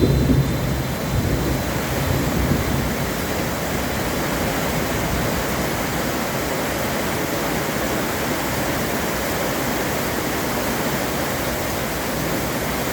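Heavy rain falling steadily, an even hiss. The tail of a low thunder rumble dies away in the first moment.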